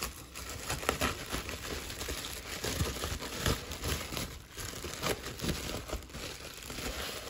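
Plastic bubble wrap crinkling and rustling as hands unwrap and handle it, with irregular sharp crackles throughout.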